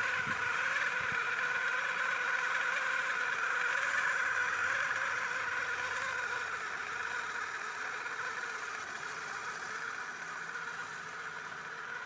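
Electric drive motor and gearing of a 3D-printed RC Kettenkrad half-track (a 920kv brushless drone motor) whining steadily as the model crawls over mud on its plastic tracks, slowly fading as it drives away.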